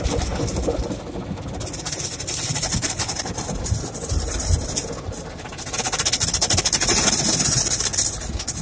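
Automatic tunnel car wash heard from inside the car: soft-cloth brushes and hanging cloth strips slapping and scrubbing over the windshield and roof amid water spray. It comes as a fast, dense patter with a low rumble, loudest in two spells, the second starting about six seconds in.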